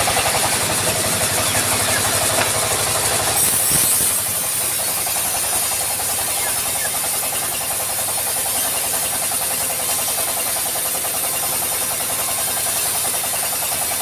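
The engine driving a band sawmill runs steadily with a fast, even pulsing beat, alongside the steady hiss of the running saw.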